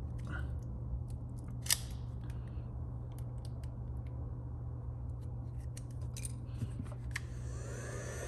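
Small scattered clicks and scrapes of plastic pry tools working under a glued-in phone battery, with one sharper snap a little under two seconds in. Near the end a small motor spins up with a rising whine into a steady hiss.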